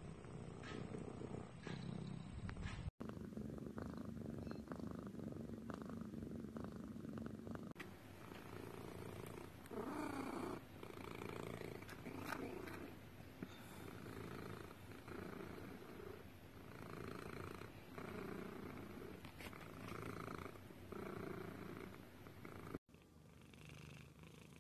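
Domestic cats purring close to the microphone, one cat after another, with the sound changing abruptly between them. Through the middle the purr swells and fades about once a second with each breath.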